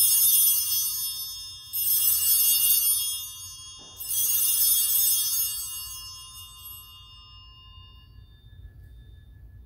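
Altar bells rung three times at the elevation of the consecrated host, each ring a bright jingle that fades away over a couple of seconds.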